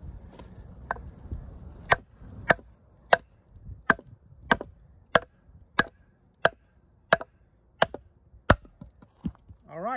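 A wooden baton striking the spine of a D2-steel fixed-blade bushcraft knife, the Holtzman's Gorilla Survival Bushwhacker, driving the blade down through a log. A couple of lighter knocks, then about eleven sharp, hard knocks in a steady rhythm, roughly one every two-thirds of a second.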